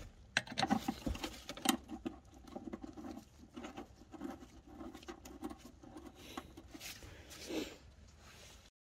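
Irregular small clicks, taps and scrapes of hand work fitting the mounting bolts of a fuel filler neck. The sound cuts off suddenly near the end.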